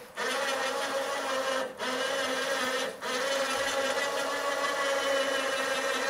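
Winch motor on a small trailer-mounted crane running with a steady whine as it hoists a sawmill head. It cuts out briefly twice, near two and three seconds in, then runs on.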